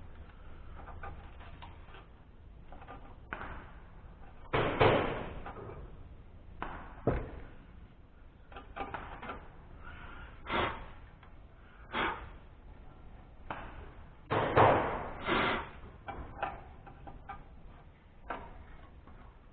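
Irregular clunks and knocks of tools and metal parts being handled during engine teardown. The loudest comes about five seconds in, and a cluster of them comes near the three-quarter mark.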